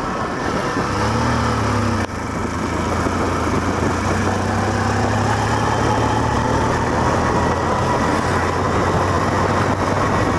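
Motorcycle engine running steadily while riding, a low hum under wind rushing over the microphone, with a brief dip in level about two seconds in.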